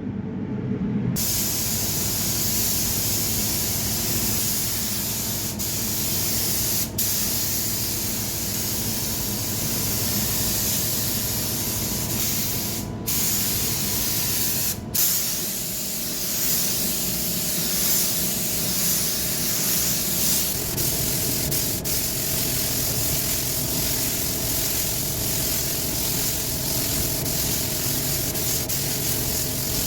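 Compressed-air paint spray gun spraying paint, a steady hiss that cuts out briefly twice around the middle.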